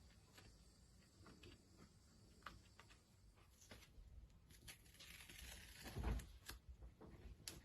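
Paper masking tape being slowly peeled off painted watercolour paper: faint scattered crackles and ticks. A louder rasping peel comes about five seconds in, with a low thump near six seconds.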